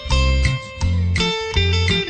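Instrumental background music with a steady beat: short pitched notes over low bass notes about every half second.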